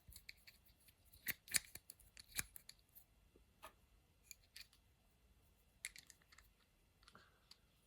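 Faint handling noise from a small steel milling arbor and its loose spacer rings being turned over in the hands: scattered light clicks and taps, most in the first three seconds and a few more about six seconds in.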